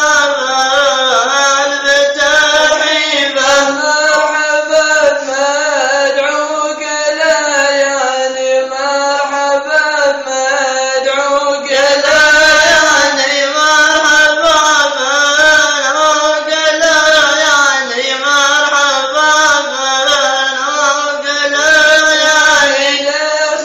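Male voices chanting an unaccompanied Gulf Bedouin shayla, with long held notes that waver in pitch and break off briefly between phrases.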